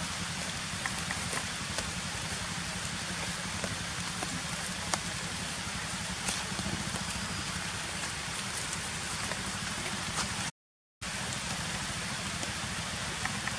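A steady, even hiss with a few faint scattered ticks, broken by a half-second of silence about ten and a half seconds in.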